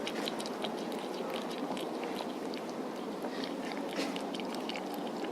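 Cat chewing food right at the microphone: quick, irregular crunching clicks over a steady background noise.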